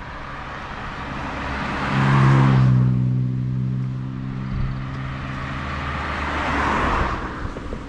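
Vehicles passing close by on a road: tyre and engine noise swells about two seconds in and again near the end, with a steady engine drone in between.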